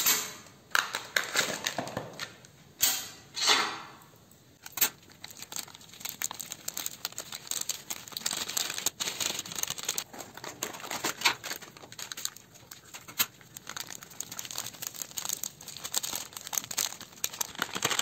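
Whipping cream powder packaging being opened, with several loud rasping tearing strokes in the first five seconds. Then a foil sachet crinkles and rustles continuously as the powder is shaken out of it.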